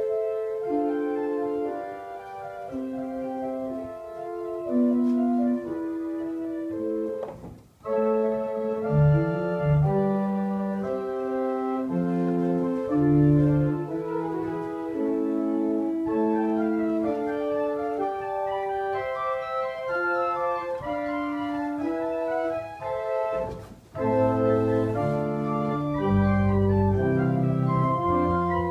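Binder pipe organ playing a slow piece in held chords. The music breaks off briefly about eight seconds in and again near 24 seconds, and deep bass notes come in after each break, strongest near the end.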